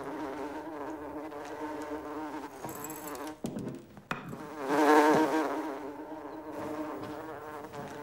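Housefly buzzing in flight, a wavering drone that breaks off briefly a little before the middle and swells loudest about five seconds in as it passes close.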